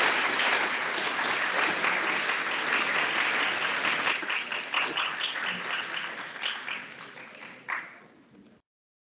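Audience applause at the end of a lecture: full at first, then thinning into scattered separate claps that die away near the end.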